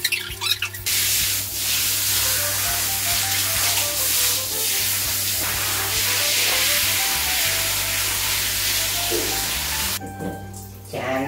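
Handheld shower head spraying water onto a dog's coat and a tiled floor: a steady hiss that cuts off suddenly about ten seconds in. Light background music with a simple melody plays under it.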